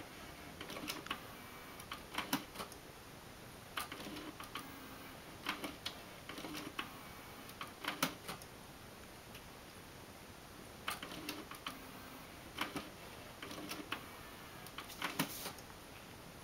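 Nakamichi SoundSpace 5 three-disc CD changer mechanism clicking in short clusters every second or two as it changes discs.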